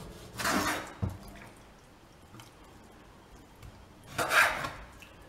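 Kitchen knife cutting raw chicken fillet on a wooden cutting board: two short scraping, wet slicing strokes, about half a second in and about four seconds in, with a dull knock of the blade on the board just after the first.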